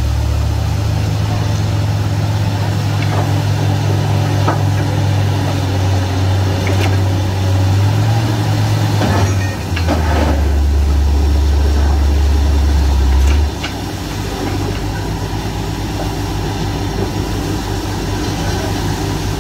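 Heavy diesel engine of a DTH borewell drilling rig running steadily. Its low note shifts a few times and drops noticeably about thirteen seconds in, as the load or throttle changes.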